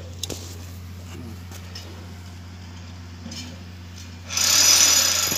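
Manual caulking gun being worked along a steel louvre frame, with a few sharp clicks near the start, over a steady low hum. About four seconds in, a loud hissing rush lasts about a second.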